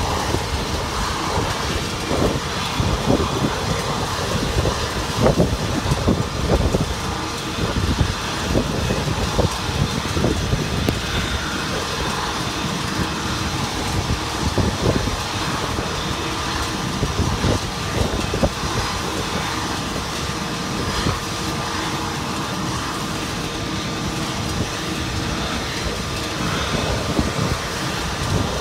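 Steady jet aircraft noise with a constant whine over it, mixed with irregular low gusts of wind buffeting the microphone.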